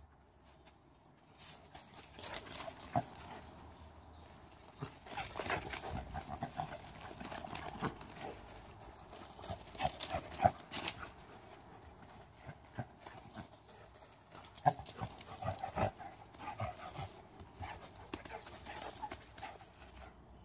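A dog running and spinning on grass and fallen leaves: irregular thuds and scuffs of its paws, with the busiest flurries about halfway through and again about three-quarters of the way in.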